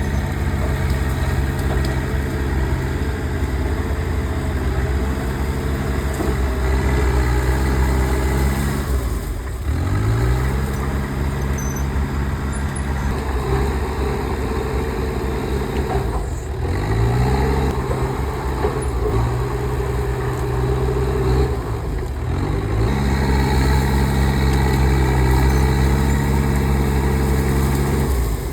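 Komatsu bulldozer's diesel engine running steadily under load. Three times, and again right at the end, it dips and climbs back up in pitch.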